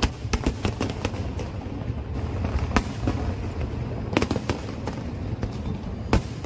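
Fireworks going off: an irregular string of sharp bangs and cracks over a steady low rumble, with the loudest bangs near the middle and near the end.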